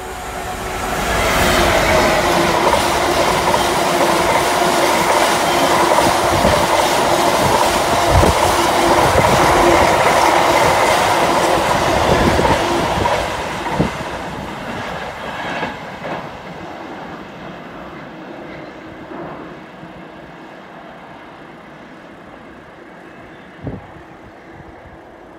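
Class 66 diesel locomotive, with its EMD two-stroke engine, passing close by hauling a train of flat freight wagons: loud engine and wheel noise with the wagons clattering over the rail joints. About thirteen seconds in it fades steadily as the train draws away, with a sharp knock just after that and another near the end.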